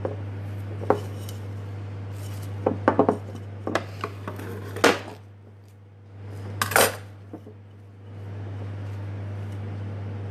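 Hands handling craft materials, a stiff fabric skirt and a bottle-shaped form: a run of sharp clicks, taps and crackles, loudest in the middle, over a steady low hum.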